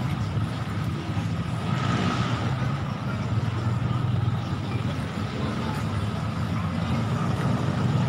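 Steady road traffic: vehicle engines running in a continuous low rumble.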